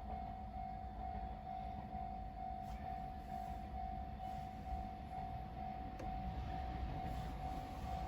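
Japanese railway level-crossing warning bell ringing in a steady repeating pattern, over the low rumble of a DENCHA battery-electric train.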